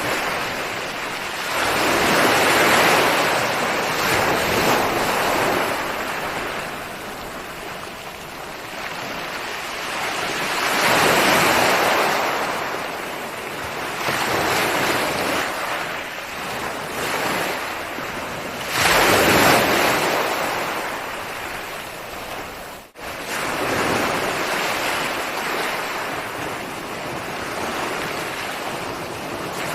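Ocean waves breaking and washing up the shore, the surf swelling and ebbing, with the biggest breakers coming about eight seconds apart. A brief sudden dropout in the sound about three-quarters of the way through.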